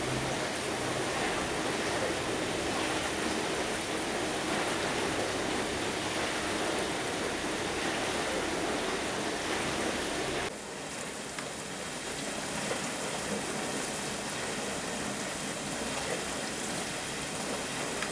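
AEG 50750 dishwasher running its programme: a steady rushing of water sprayed inside the tub. About ten and a half seconds in the sound drops suddenly, then goes on quieter.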